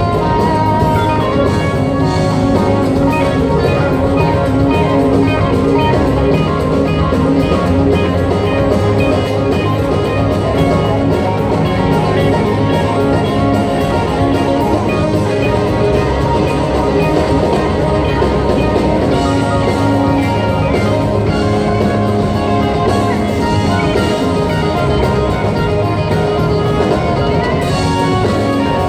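Live rock band playing a song: electric and acoustic guitars over keyboards and a drum kit, continuous and loud.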